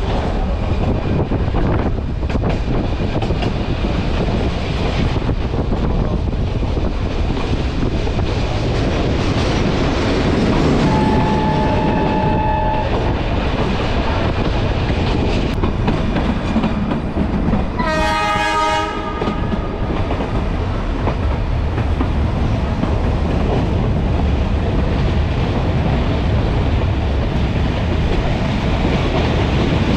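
A Nilgiri Mountain Railway carriage running along the track with a steady noise of wheels and rails. A horn sounds twice: a thin two-note tone for about two seconds about 11 s in, then a louder, fuller blast of about a second about 18 s in.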